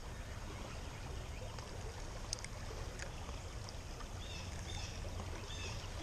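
Shallow creek water running over riffles: a steady rushing hiss, with a couple of faint ticks.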